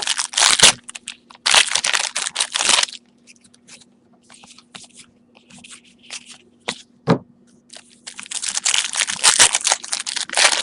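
Trading card packs being torn open and their wrappers crinkled by hand, in bursts of crackling: near the start, around two seconds in, and again from about eight seconds in, with lighter rustling of wrappers and cards between.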